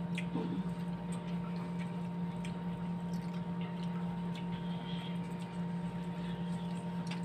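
A steady low hum, with faint scattered clicks and smacks of eating and chewing.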